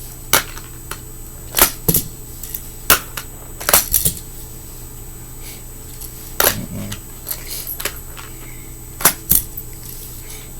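Fingerboard clacking on a hard surface: sharp clacks of the tail popping and the board landing, about ten at uneven intervals.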